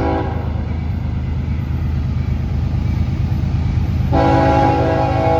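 Diesel freight locomotive's air horn: one blast cuts off just after the start, then comes the low steady rumble of the passing train, and about four seconds in the horn sounds again, held through to the end.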